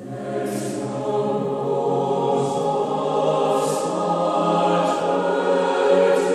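Mixed choir singing in a church, entering together right at the start after a moment of silence and holding sustained chords, with crisp 's' consonants standing out several times.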